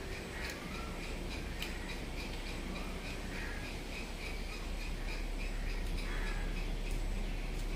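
Birds calling in the background: a rapid chirp repeating about four times a second, with a few short calls, over a steady low hum.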